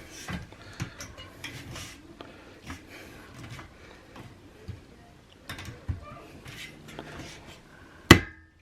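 Metal bed-frame parts being handled, with scattered light clicks and knocks and one sharp knock near the end.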